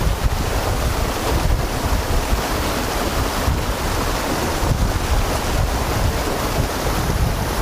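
Steady rush of a mountain trout stream's flowing water, with wind rumbling on the microphone.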